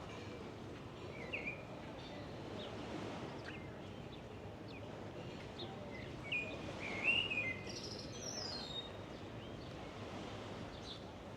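Birds chirping in short, curving calls, loudest about seven seconds in, over a steady background rumble of outdoor noise.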